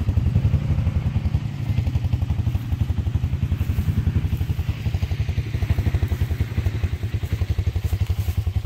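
An ATV engine idling steadily, a fast, even low putter with no change in speed.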